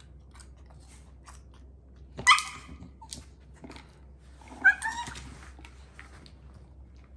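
Dog giving two short, high barks about two and a half seconds apart, demand barks for a treat from its treat-dispensing toy. Faint taps are heard between them.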